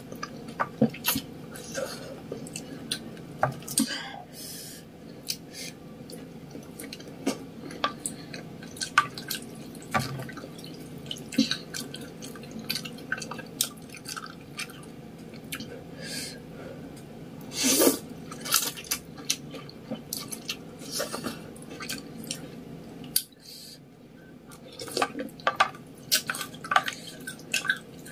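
Close-up eating sounds of ramen noodles in soup being slurped and chewed, with many short wet mouth clicks and smacks. The loudest slurp comes a little past halfway.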